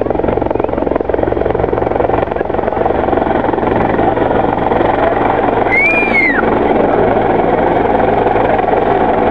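Bell 412 four-bladed helicopter flying in the air: its main rotor beats steadily and rapidly over the running of its turbine engines.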